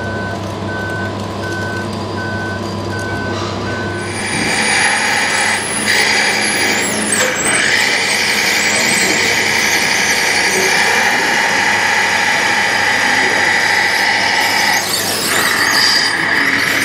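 A warning beeper sounds in short, evenly spaced beeps for about the first four seconds. Then scale RC crawler dozers take over with a steady, high mechanical whine from their drive motors and gearing that lasts to the end.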